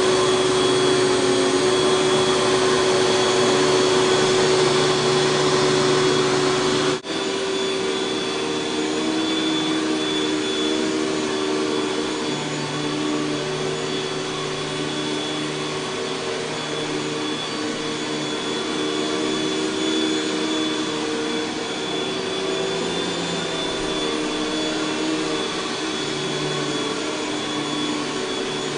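Panasonic Jet-Flo MC-6210 upright vacuum cleaner running steadily, with a constant motor whine over the rush of air. About seven seconds in the sound breaks off for an instant, then carries on a little quieter.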